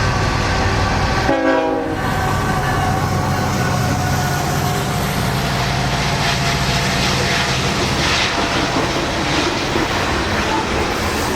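BNSF coal train passing close by: diesel locomotives running with a low rumble, the horn sounding a held chord for the first few seconds, then loaded cars rolling past with a steady wheel clatter.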